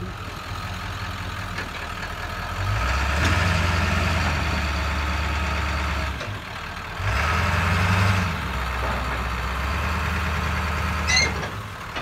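A vehicle engine running, revving up twice for a few seconds each and then settling back to a steady run. A brief high squeak comes near the end.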